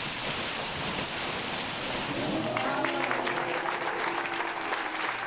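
Crowd applauding, with voices joining in over the clapping from about halfway.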